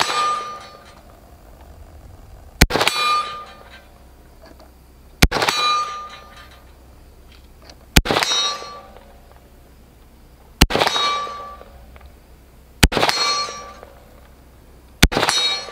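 Six single shots from a Sig Sauer Spear LT 5.56 rifle, spaced about two to three seconds apart, each followed by a ringing clang of a steel target being hit.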